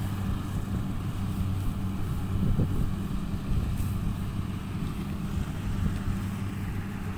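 A steady low engine drone holding one pitch, with wind rumbling on the microphone.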